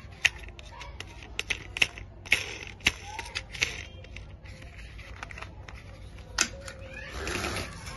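Irregular sharp clicks and knocks from a plastic toy crane truck being handled and pushed across a concrete floor, with a short scraping rustle near the end.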